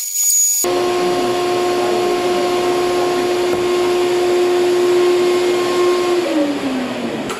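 Vacuum cleaner running with a steady hum and rushing air, then switched off about six seconds in, its pitch falling as the motor winds down.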